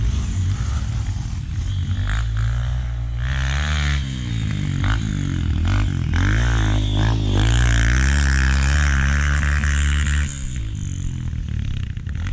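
Dirt bike engine revving up and down repeatedly as it is ridden around the track. It is loudest shortly after the middle and eases off near the end.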